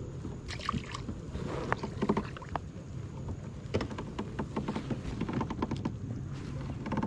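Scattered clicks and light knocks of hands and fishing gear being handled aboard a plastic fishing kayak, over a steady low rumble, the clicks coming thickest in the second half.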